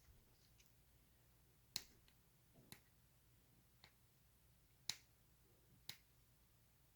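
Five short, sharp clicks about a second apart over near silence, from small hard parts of the camera gear being handled.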